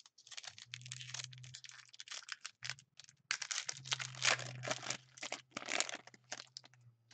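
Foil trading-card pack being torn open by hand, its wrapper crinkling in a run of irregular crackles that grows busier in the second half.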